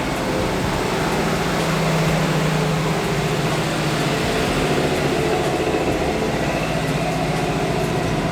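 Jeep CJ7's carbureted engine running steadily at low speed while driving, a constant engine drone with a steady hum.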